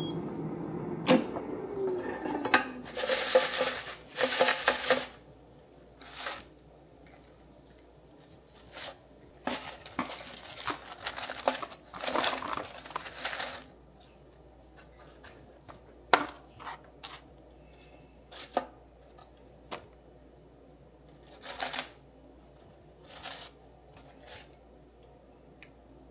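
Air fryer basket handled at the counter: its fan hum dies away in the first two seconds, then the basket is pulled out and fried jalapeno poppers are tipped onto a plate, with scattered plastic knocks, clatters and short scrapes.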